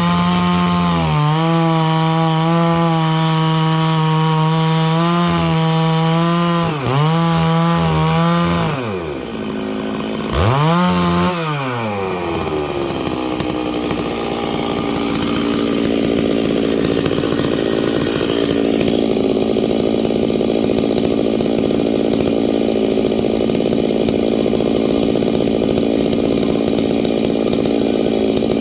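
Stihl 660 two-stroke chainsaw with a 36-inch bar held at full throttle, ripping lengthwise through dry larch. About nine seconds in the revs fall away, the throttle is blipped once, and the saw then settles to a lower, steady running.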